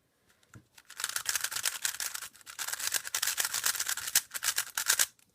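GAN 356 Advanced speed cube being turned fast, a rapid run of plastic clicks and clacks as the layers snap round, starting about a second in and stopping just before the end.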